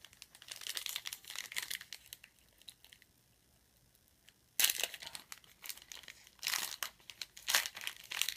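Foil wrapper of a trading-card pack being torn and crinkled open by hand, in spells of rustling with a short pause in the middle and a sharp tear about four and a half seconds in. The pack is tough to open.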